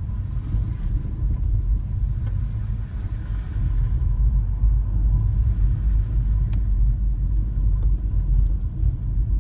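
Steady low rumble of a car driving along a road, heard from inside the car.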